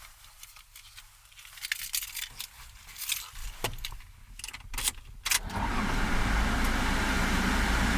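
Keys jingling with small clicks for a few seconds, then the Toyota Hiace van's engine starts about five seconds in and runs steadily at idle.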